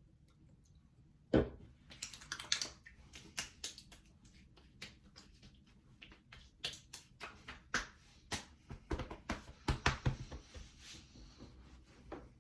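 Hands patting and slapping Old Spice aftershave onto the face: an irregular run of sharp slaps and pats, starting with a louder thump about a second and a half in and dying away near the end.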